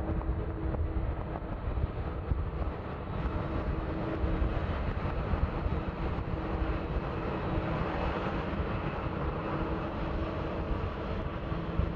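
Twin-engine jet airliners taxiing with their engines at low power: a steady rumble and whine that swells a little in the middle.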